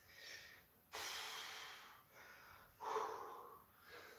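Heavy breathing of a man straining through barbell biceps curls: several forceful breaths in and out, the longest about a second in.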